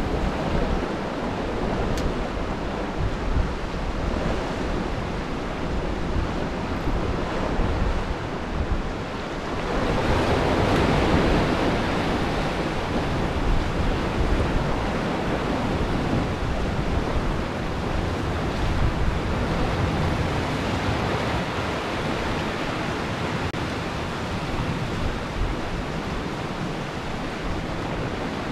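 Heavy ground swell of two and a half to three metres surging and breaking against the rocks, a steady wash of surf that grows louder about ten seconds in.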